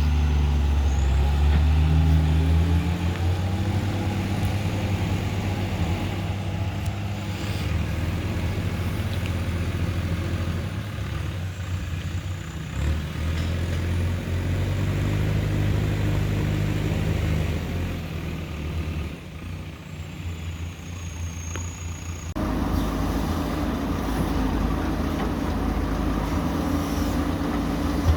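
Heavy diesel engine of a JCB 3DX backhoe loader working as it loads a dump truck, running at a steady drone and speeding up and slowing down from time to time. The sound changes abruptly about 22 seconds in.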